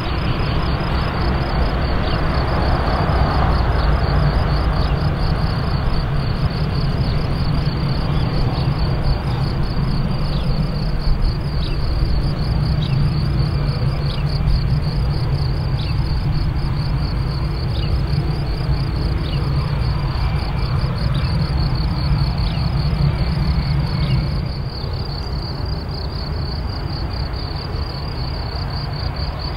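Airbus A320 jet engines running at low taxi power as the airliner rolls slowly past, a low steady rumble that eases near the end. Crickets chirp continuously over it.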